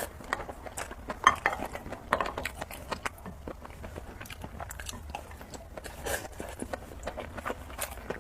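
Close-up eating sounds of spicy noodles being chewed: irregular wet mouth clicks and bites, a sharper one about a second in.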